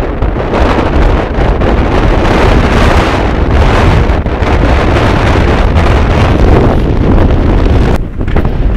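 Strong force 6 wind buffeting the microphone aboard a sailboat: a loud, gusting rumble. It eases about eight seconds in.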